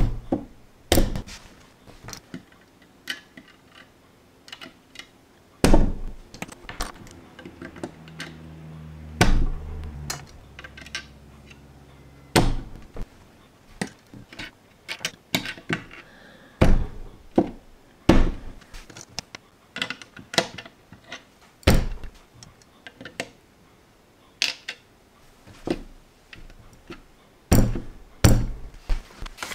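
Small plastic LEGO pieces handled with metal tweezers and pressed together by hand on a tabletop: irregular clicks, taps and knocks, with a heavier thump every few seconds as bricks are pushed home.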